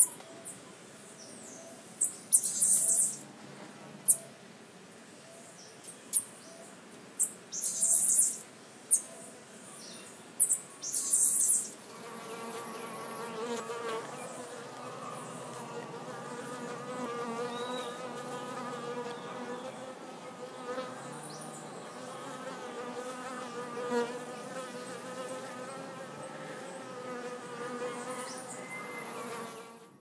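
Several short, sharp high-pitched chirps and clicks in the first dozen seconds, then bees buzzing steadily, an even hum with a few overtones, through the rest.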